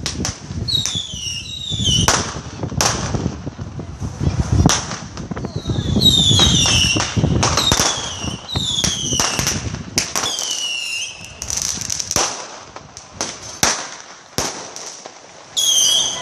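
Fireworks and firecrackers going off: many sharp bangs and cracks, and a run of high whistles that each fall in pitch, over a low rumble.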